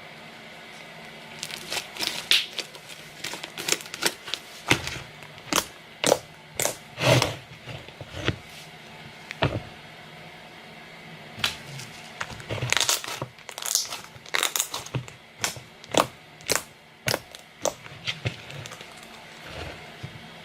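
Fluffy slime being squished and stretched by hand, giving a string of irregular sharp pops and crackles, with a short lull about halfway.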